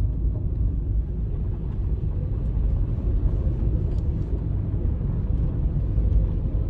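Car rolling slowly over a gravel driveway, heard from inside the cabin: a steady low rumble of engine and tyres, with a few faint ticks.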